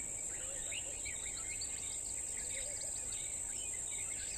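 Many small birds chirping in quick, scattered calls over a steady high-pitched insect trill: the natural chorus of open bush.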